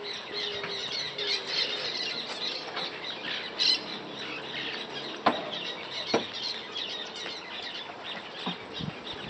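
Small birds chirping steadily. A dog whines briefly at the start, and there are two sharp clicks about five and six seconds in.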